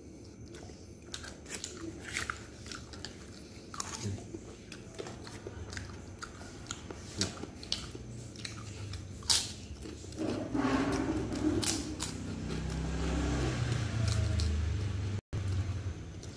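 Close-miked biting and chewing of chicken satay pulled off bamboo skewers, with many sharp mouth clicks. A low hum joins in for the last few seconds.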